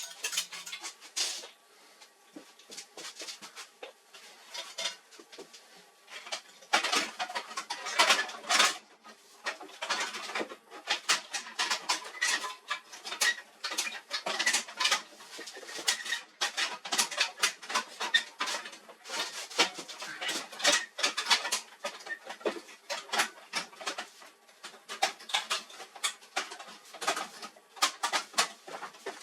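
Irregular clicks, taps and rattles of plastic and metal printer parts and tools being handled, in quick uneven runs.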